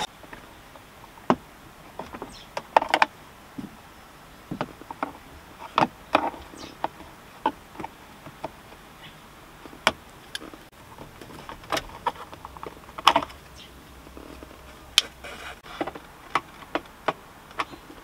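Irregular clicks, taps and knocks from hand work on a Honda CRX's plastic centre-console trim: a screwdriver on the console screws and the panels being handled, some knocks sharper than others.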